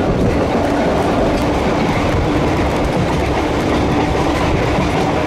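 Electric rail car running steadily along the track: a loud, even rumble of wheels on rail with scattered light clacks and a faint steady hum.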